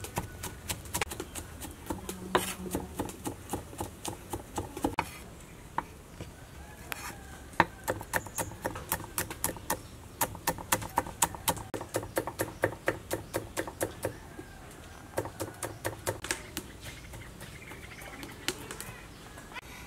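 Cleaver chopping garlic cloves and red chilies on a wooden cutting board: rapid, sharp knocks of the blade on the board, about five a second, in runs broken by short pauses.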